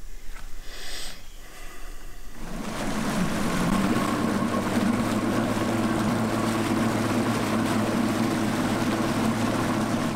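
Boat motor running steadily, starting about two seconds in.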